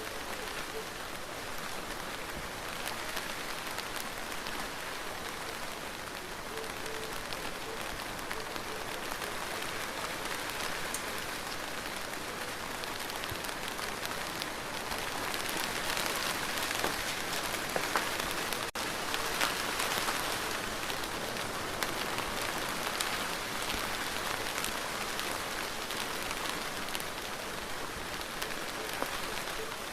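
Steady rain falling, with individual drops tapping; it gets a little heavier around the middle, and the sound cuts out for an instant a little past halfway.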